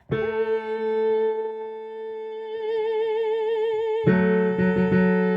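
Choral rehearsal music: a long sung note with vibrato held over keyboard chords, with a new chord struck about four seconds in.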